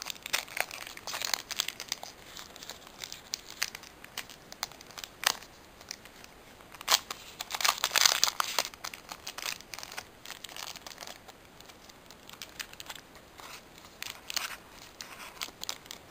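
Foil Pokémon trading-card booster pack crinkling in the hands as it is torn open, in irregular bursts; the loudest stretch of crinkling and tearing comes about halfway through.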